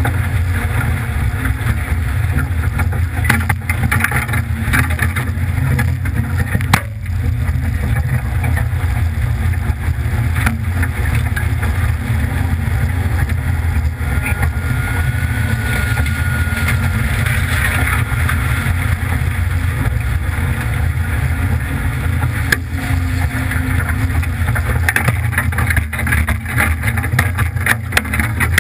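Ford F-150 pickup's engine running steadily as the truck drives through a shallow, iced-over stream, with water sloshing and broken ice scraping and cracking against it. Sharp knocks come now and then, the strongest about seven seconds in, and more crowd together near the end.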